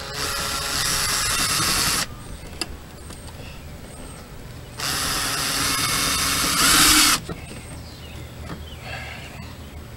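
Power drill driving a screw to mount a tail light, in two runs of about two seconds each. The second run gets louder just before it stops, as the screw seats.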